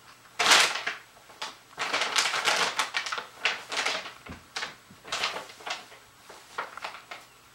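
Brown paper bag rustling and crinkling in irregular bursts as two kittens pounce on it and crawl inside it, loudest about half a second in and again for a longer spell around two to three seconds in.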